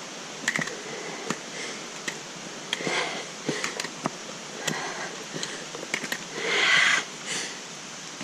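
A hiker breathing hard on a climb, with irregular footfalls and small knocks on the trail.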